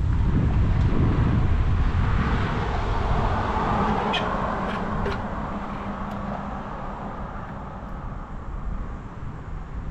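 Wind rumbling on the microphone of a bicycle-mounted camera while riding, easing off gradually, with a motor vehicle passing about four seconds in and a few sharp clicks as it goes by.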